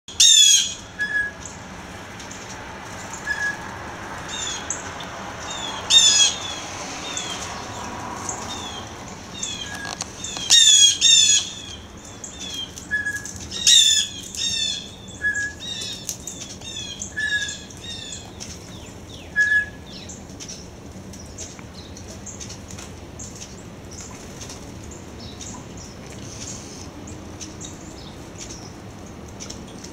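Blue jays and other birds calling: several loud calls, some in quick pairs, among many short high chirps, which thin out after about twenty seconds.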